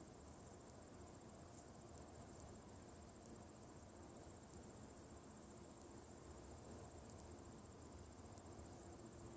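Near silence with a faint, steady, high-pitched pulsing trill of an insect, over a faint low hum that swells slightly near the end.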